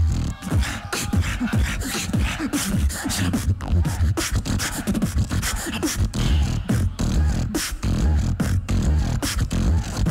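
Beatboxer performing a solo battle round into a stage microphone: a dense, fast beat of vocal kicks and snares over heavy bass, with sliding bass sounds that drop in pitch.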